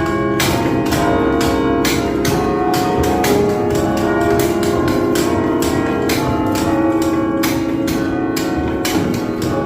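A 47-bell carillon played from its keyboard: bells struck one after another, several notes a second, in a melody, their tones ringing on and overlapping.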